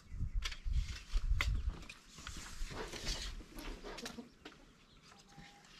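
Chickens clucking, with a few light clicks and knocks from work on a wooden frame.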